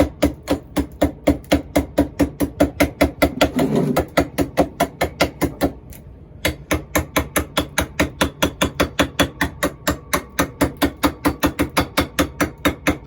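Hand hammer beating on metal, a steady run of ringing blows at about four a second, with one short break about six seconds in.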